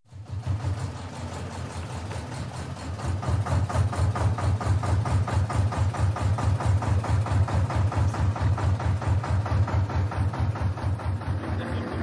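Engine running steadily at idle: a low chugging that pulses evenly several times a second.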